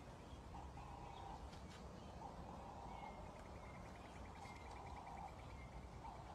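Faint birdsong with outdoor ambience: a steady-pitched note repeated about every two seconds, and a rapid higher trill in the middle, over a low background rumble.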